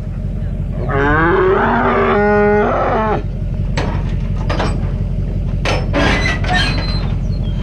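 Dairy heifer bawling once, a long moo of about two seconds that bends in pitch and then holds level, from a wild heifer roped and being loaded. Scattered sharp knocks and rattles follow.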